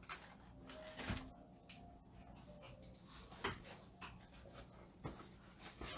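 Quiet room with a few faint, soft knocks spaced a second or more apart.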